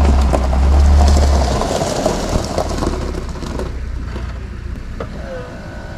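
Vehicle engine rumble, heavy and low, easing off after about a second and a half. A steady high tone begins about five seconds in.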